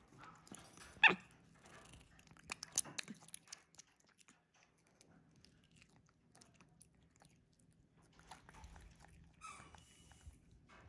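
Capuchin monkey eating a piece of ripe fruit close to the microphone: wet bites and chewing smacks, with the loudest sharp sound about a second in and a cluster of clicks a couple of seconds later.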